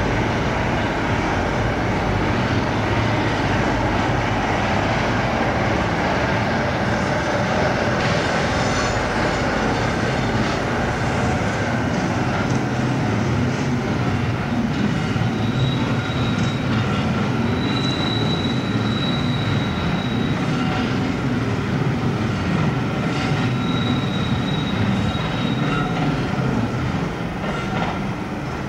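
British Rail Class 47 diesel locomotive, its Sulzer twelve-cylinder engine running steadily as it hauls coaches past. Wheels squeal in a thin high tone on the curved pointwork, twice in the second half.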